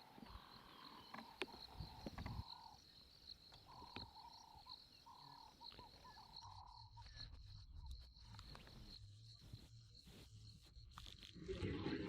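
Insects trilling: a faint, steady high-pitched trill with a lower buzzing tone coming and going in the first half.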